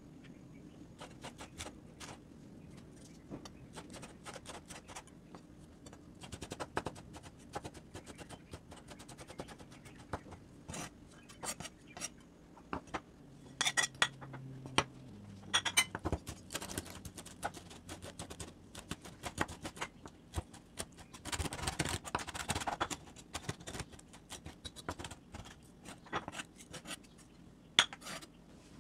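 Kitchen knife chopping on a bamboo cutting board: many quick, irregular taps of the blade on the wood, with a few seconds of scraping about three-quarters of the way through.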